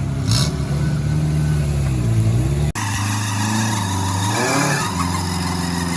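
Off-road 4x4's engine labouring and revving, its pitch dipping and rising with the throttle. The sound breaks off abruptly a little under three seconds in and picks straight up again.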